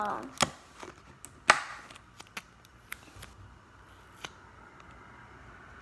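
A few scattered taps and clicks from handling a plastic slime container as a sticker is pressed onto it. The loudest tap comes about a second and a half in.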